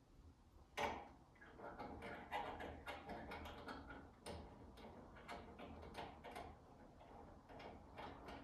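Faint clicking and knocking of hands working the brass flush valves and hose fittings on a tankless water heater, with a louder click about a second in.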